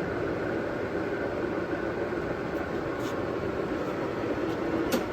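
JET GH1460ZX 14x60 gear-head toolroom lathe running steadily at 436 RPM, a constant mechanical hum with a sharp click near the end.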